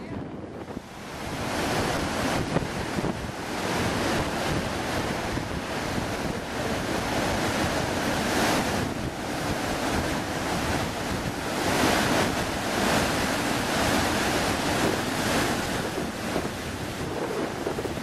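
Big ocean waves of a heavy swell breaking, a continuous rushing surf with wind buffeting the microphone. It grows louder about a second in and swells in surges, with a couple of louder peaks in the middle.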